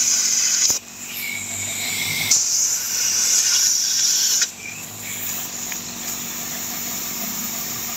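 Compressed air hissing out of a blow nozzle in bursts. It cuts off under a second in, comes back with a thin whistle, then blows hard again until it stops about four and a half seconds in.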